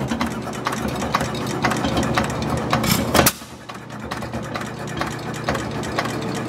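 Challenge 1S 3 hp hit-and-miss hoisting engine running, with a fast regular mechanical clatter and one louder beat about three seconds in.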